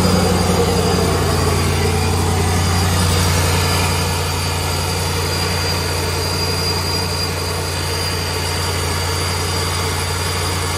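Cammed 5.7 Hemi V8 with a TorqStorm centrifugal supercharger fitted, idling steadily, with a faint steady high tone above the engine note.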